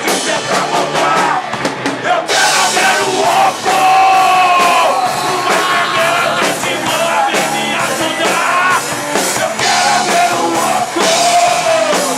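Rock band playing live: a drum kit beat under a sung, partly yelled vocal with long held notes. The cymbals get louder about two seconds in.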